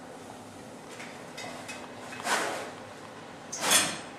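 Two short scraping swishes about a second apart from a metal ladle working in a stainless steel stockpot of hot shortening.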